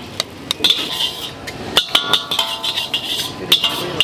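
A metal spatula clanking and scraping against a wok as noodles are stir-fried: a quick irregular run of sharp metallic strikes, some of them ringing briefly.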